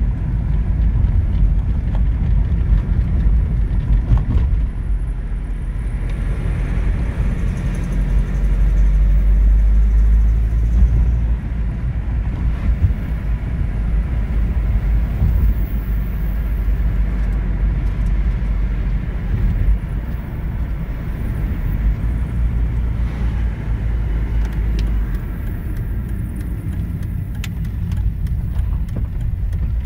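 BMW E46 318d's M47N four-cylinder diesel engine running steadily, with the injector ticking and knocking that the owner later cured by having all four injectors rebuilt.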